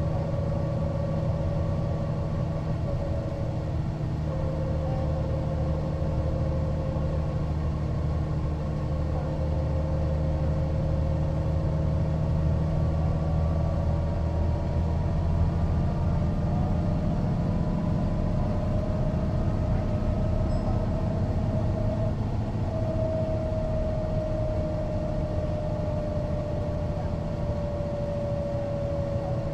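Mercedes-Benz O405NÜ city bus driving, its engine running with a steady low drone and a high whine that drifts slowly in pitch.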